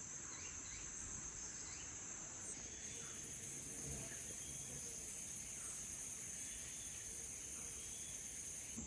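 Steady, high-pitched chorus of rainforest insects, a continuous shrill drone.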